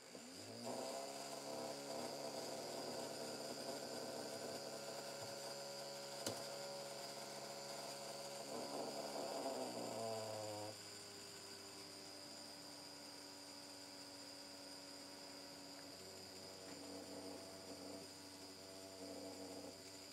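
Small DC motor with a disc on its shaft, driven from an Arduino circuit, spinning up about half a second in and running with a steady hum. About ten seconds in it slows and runs on more quietly at a lower speed.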